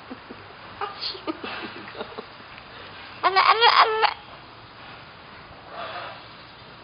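A sulphur-crested cockatoo imitating human laughter: a loud run of quick repeated 'ha-ha' calls about three seconds in, with a few softer chuckles before it and a faint call near the end.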